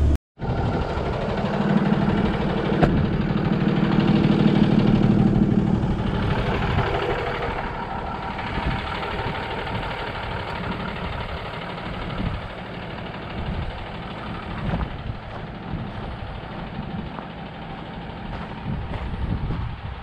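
Heavy truck's diesel engine running, a loud steady drone for the first several seconds that then eases to a lower, rougher running sound. A single sharp click comes near the start.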